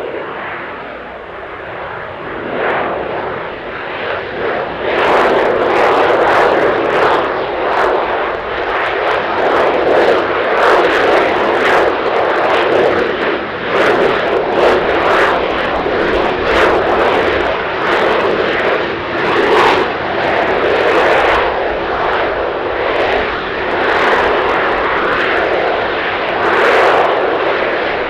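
An AV-8B Harrier II's Rolls-Royce Pegasus vectored-thrust turbofan running at high power while the jet flies slowly with its landing gear down, held up on engine thrust. A loud, wavering jet roar that grows louder about five seconds in.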